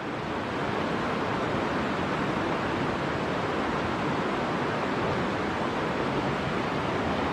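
Steady rushing of a small mountain stream's flowing water, an even hiss with no breaks.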